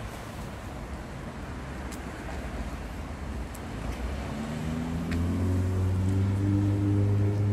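A steady outdoor hiss, then about four seconds in an engine's low steady hum rises in and holds, becoming the loudest sound.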